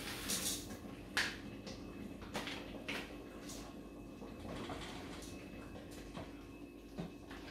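Seasoning being shaken out of a sachet into a multicooker pot: a short rustling hiss at the start, then scattered light clicks and taps of hands and packet at the pot, over a faint steady hum.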